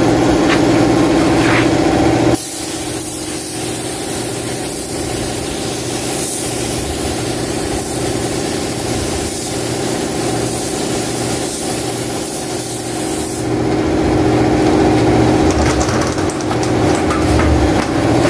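Compressed-air paint spray gun hissing as it sprays clear coat, over the steady hum of an air compressor motor. The hiss drops away about two seconds in and comes back strongly near the end.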